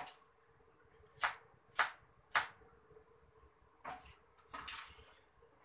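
Kitchen knife chopping on a wooden cutting board: a series of sharp separate strikes, three about half a second apart, then after a short pause a few more in quick succession.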